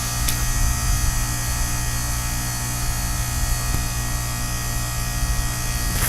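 Goodman heat pump outdoor unit running in its defrost cycle, the compressor giving a steady electrical hum while the iced-over coil steams.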